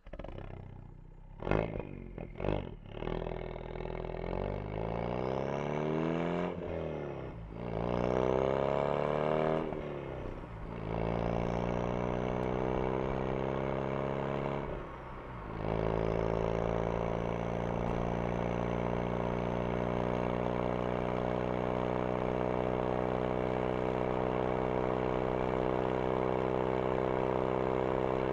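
Ford Focus RS engine and exhaust: a few short, sharp, loud blips about two seconds in, then the car pulls away, the note rising in pitch through three gears with a brief dip at each upshift, and from about halfway through it settles into a steady drone at cruising speed.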